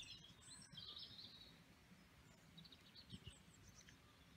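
Near silence with faint bird chirps, a few short high calls in the first second or so and again around three seconds in.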